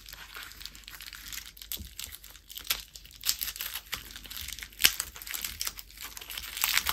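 Clear plastic bag crinkling and crackling as it is handled and pulled open to unwrap a bare circuit board, with irregular sharp crackles and a few louder snaps.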